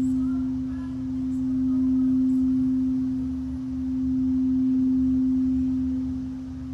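Singing bowl ringing one sustained, pure low tone that swells and fades slowly, about every three seconds.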